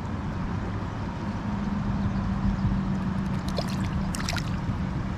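Water of a small stream running over rocks in a riffle, a steady rushing. A low steady hum joins it about a second and a half in, and a few faint ticks come just before the end.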